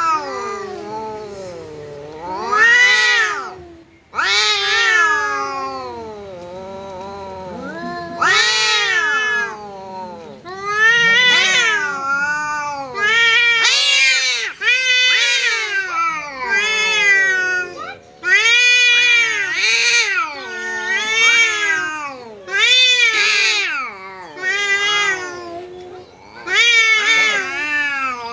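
Two cats in a territorial standoff, yowling at each other: long, drawn-out caterwauls that waver up and down in pitch and swell to loud peaks every couple of seconds.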